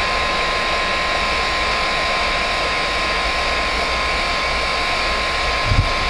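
Heat gun blowing hot air: a steady rushing blow with a constant high whine. A brief low bump comes near the end.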